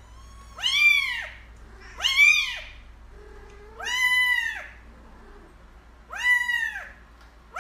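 Kitten meowing: four high-pitched meows about two seconds apart, each rising then falling in pitch.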